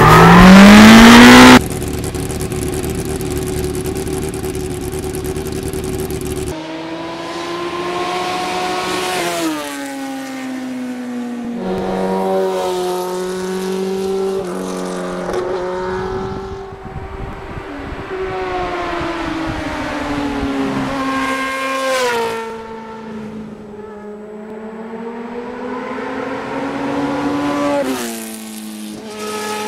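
Motorcycle engine accelerating through the gears, its pitch climbing and then dropping at each shift, several times over, after a loud rising sound in the first second and a half.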